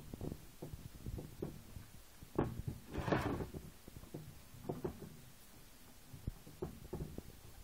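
Metal-framed, netted creel being handled and turned on a workbench: scattered light knocks and rattles, with a louder scrape about three seconds in.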